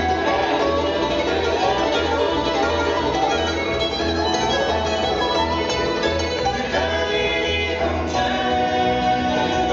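Live bluegrass band playing: bowed fiddle, banjo, mandolin and acoustic guitar over steady upright-bass notes.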